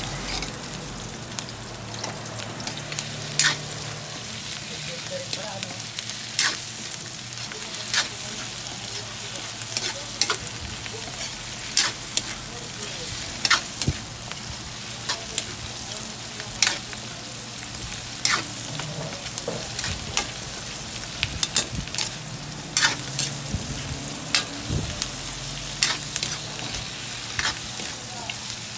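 Onions and dried salted fish (tuyo) sizzling in a hot metal wok, stirred with a metal spatula that scrapes and clinks sharply against the pan every second or two.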